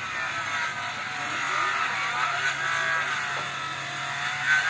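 A motor engine running steadily, its pitch wavering slightly up and down.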